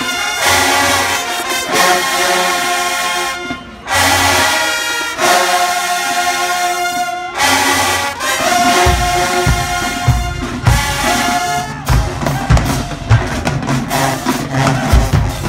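A high school marching band playing: the brass section, including sousaphones and trumpets, sounds loud held chords in phrases with short breaks about 3.5 and 7 seconds in. About 9 seconds in, the drum line comes in with heavy bass drum hits under the horns.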